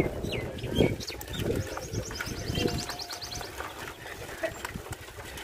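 Small birds chirping, including a rapid high trill about two seconds long, over a low rumble.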